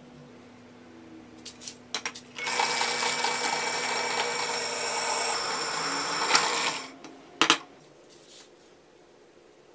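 Benchtop drill press running and drilling into a metal bar: a steady motor whine mixed with cutting noise for about four and a half seconds, then it stops abruptly. A couple of sharp clicks follow shortly after.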